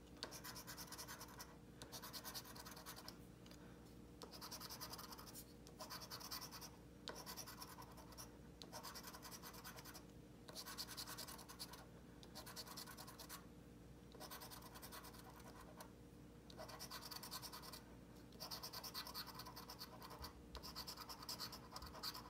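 Faint scratching of a $20 Mega Millionaire scratch-off lottery ticket, the coating scraped off in repeated runs of about a second, each followed by a short pause.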